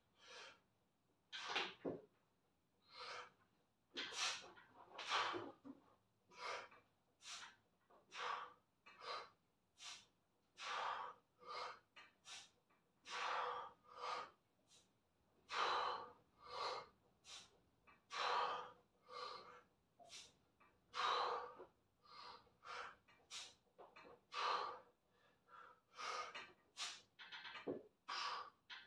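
A man's short breaths in and out, about one a second, while he presses a 100 kg barbell through a long set of close-grip bench presses: the breathing of lifting effort.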